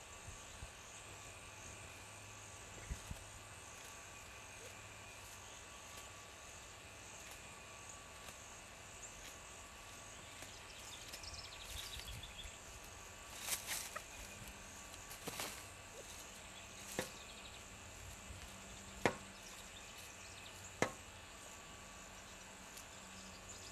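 Pileated woodpecker pecking: about five sharp single knocks, a second or two apart, in the second half. Under them runs a steady drone of insects.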